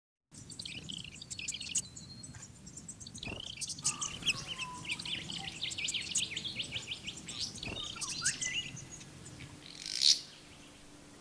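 Small birds chirping and twittering, many short high notes overlapping, thinning out about nine seconds in. A brief rushing whoosh follows near the end.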